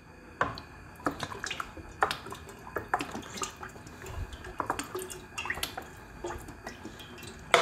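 Groundnut oil heating in a metal pot, giving irregular small pops and crackles as it gets hot.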